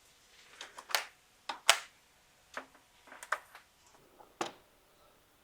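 A series of irregular sharp clicks and knocks, about a dozen, with the loudest about a second and a half in.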